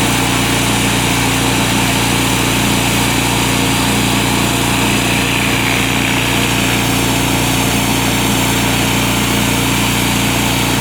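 Gas-engine BE pressure washer running steadily under load, with the constant hiss of high-pressure water spraying onto concrete.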